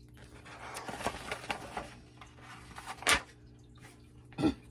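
Paper pages of a picture book rustling as they are turned by hand, with a sharp click about three seconds in and a short thump near the end.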